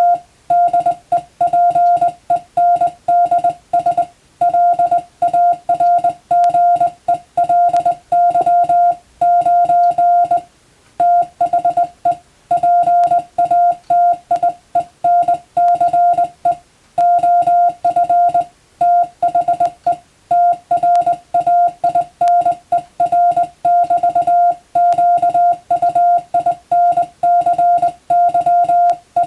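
Morse code (CW) signal: a single steady mid-pitched tone keyed on and off in short and long marks (dots and dashes), sending practice text, with two brief longer pauses between groups.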